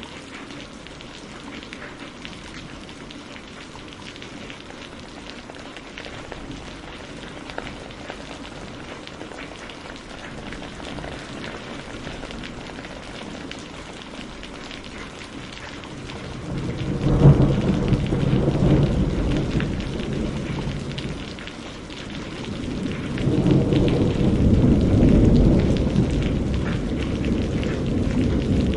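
Steady rain falling, then thunder: a sudden clap a little past halfway that rolls off over a few seconds, followed by a second long low rumble that builds near the end.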